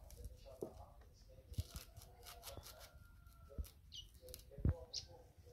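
Kitchen knife slicing through a handful of rolled pumpkin leaves held against the thumb: a series of short, irregular cutting and tearing strokes as the leaves are shredded.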